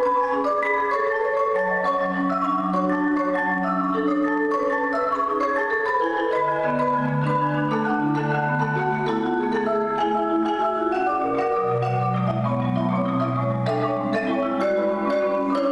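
Four players on two marimbas playing a fast, repeating pattern of mallet notes in several parts, over held low notes that step down in pitch about six seconds in and again about twelve seconds in.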